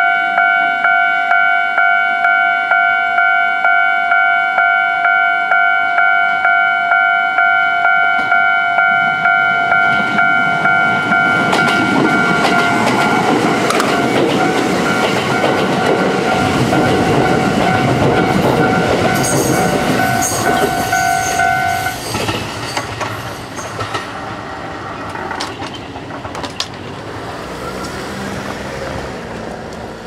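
A Japanese level crossing's warning bell rings in a steady repeated pulse while a Kintetsu express of 2800-series and 1259-series electric cars passes. The rumble and wheel clatter build to a peak and then fade with clacks over the rail joints. The bell stops about two-thirds of the way through.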